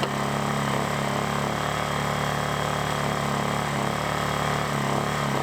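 Lifan ESI860i-CA 40cc inverter generator's engine running at a steady speed under a light load while it charges a 12-volt battery at about 2.5 amps.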